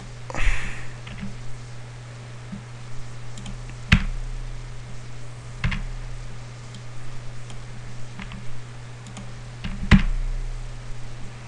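Scattered keystrokes on a computer keyboard: a few sharp key taps several seconds apart, the loudest about four and ten seconds in, over a steady low hum.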